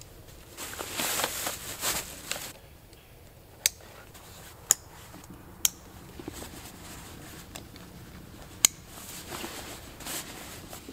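Camping gear being packed onto a backpack: nylon fabric and straps rustling in two spells, one near the start and one near the end, with four sharp clicks spaced over the middle.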